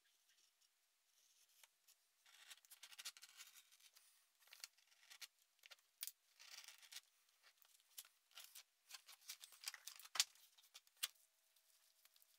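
A hand-held blade scratching and crackling as it scores and cuts through leather in a series of short strokes, with a sharp click about ten seconds in.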